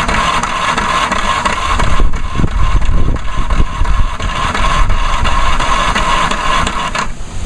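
Craftsman self-propelled lawnmower's small engine running steadily after a pull-start, then cutting out about seven seconds in.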